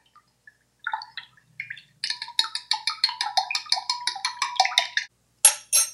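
A metal spoon stirring sugar and yeast into water in a glass measuring cup, clinking against the glass in a fast, even run of about six or seven ringing clinks a second, with two sharper clinks near the end.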